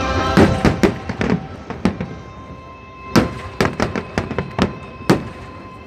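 Fireworks display bursting: a string of sharp bangs at irregular intervals, densest and loudest in the first second, then spaced out, over faint background music.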